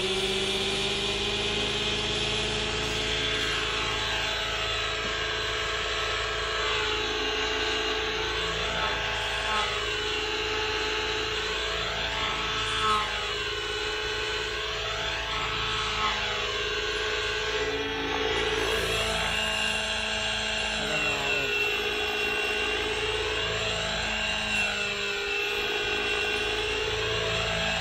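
Neo Caliber GT15 RC helicopter's engine and rotors running: a steady high whine that rises in pitch over the first seconds as it spools up, then holds while the helicopter lifts off and hovers, its tone wavering as it moves. The owner suspects the engine is running poorly.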